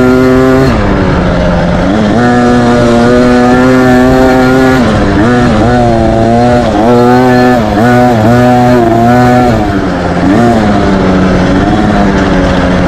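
A child's dirt bike engine running hard, recorded close from the handlebars. Its pitch dips and climbs back up several times as the rider works the throttle along the trail.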